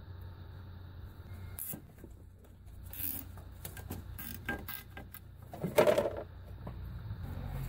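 Small clicks and rattles of hand work on engine parts, with one short, louder rasp about six seconds in.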